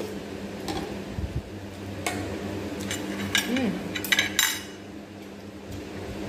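Cutlery and dishes clinking at a dinner table, a scatter of sharp clinks about two seconds in and a quick cluster around three to four and a half seconds, over a steady low hum.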